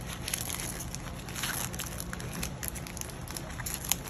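Foil trading-card booster pack crinkling in the hands as it is opened: a run of small sharp crackles, with one sharper click near the end.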